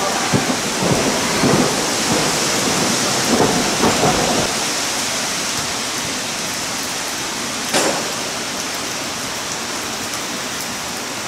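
Steady rain hissing, with a run of low, uneven knocks in the first four seconds and a single sharp click about eight seconds in.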